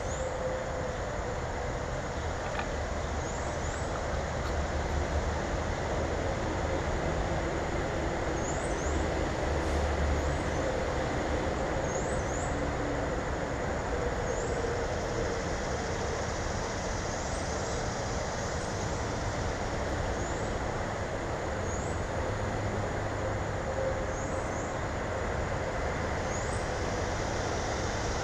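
Steady low background rumble, with short, thin, high-pitched bird chips, single or paired, every second or few.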